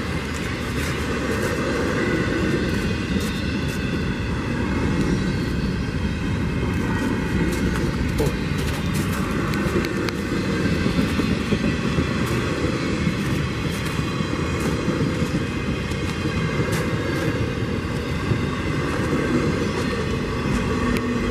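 Intermodal freight train cars rolling past: steady noise of steel wheels on rail, with sharp clicks throughout.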